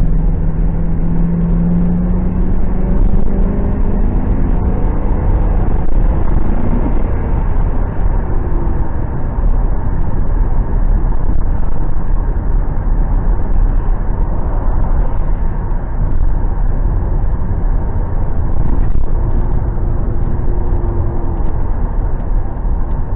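Ford Crown Victoria Police Interceptor's 4.6-litre V8 under hard acceleration, heard from inside the cabin. The engine note climbs in pitch over the first several seconds, then settles into steady engine, tyre and wind noise at speed. It is pulling cleanly after the cylinder 5 coil pack was replaced to cure a misfire.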